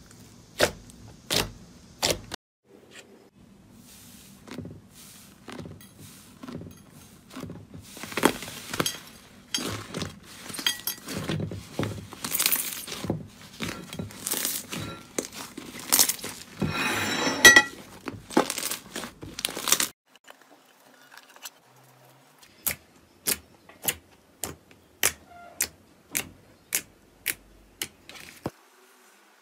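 Hands squeezing and kneading slime, giving a long run of dense crackles and pops. Near the end, a finger poking into glittery clear slime gives single sharp pops, evenly spaced at about one and a half a second.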